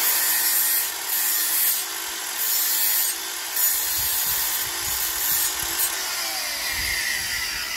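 Cordless angle grinder running, its disc grinding the plastic wings off a mushroom insulation plug. The level rises and falls as the plug is pressed to the disc. About six seconds in the grinder's pitch falls as it winds down.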